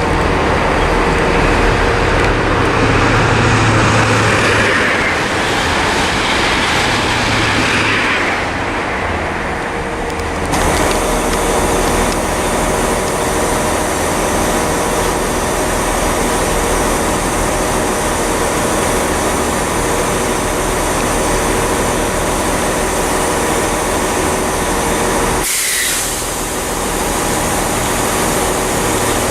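Trains at a railway station: a rushing, noisy train passage for about the first ten seconds, then, after an abrupt change, a train's engine running steadily with a held droning hum.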